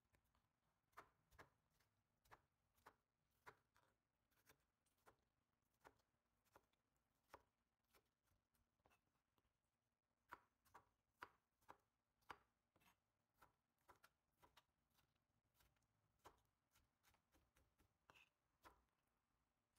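Faint, irregular taps of a kitchen knife striking a plastic cutting board while dicing peeled tomatoes, a few slightly louder strikes about halfway through.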